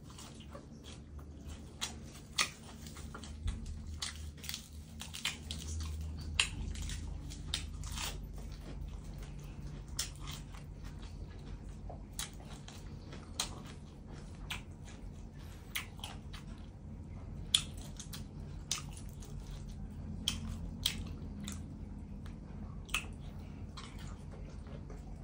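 A person chewing mouthfuls of spicy raw shrimp salad with fresh herbs, with irregular wet smacks and crisp clicks of the mouth as he eats.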